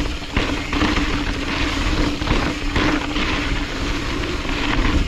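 Wind rushing over the microphone and rolling trail noise from a mountain bike being ridden, with a steady low hum underneath.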